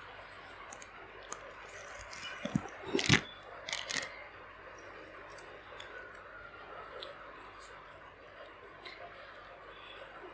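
Faint handling noises as a cotton cloth bundle of drained paneer is twisted and knotted by hand, with a cluster of sharp clicks about three to four seconds in.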